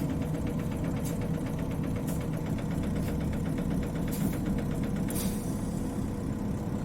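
Diesel engine of an Isuzu Cubic KC-LV380N city bus idling steadily, heard from inside the cabin, with a faint click about once a second.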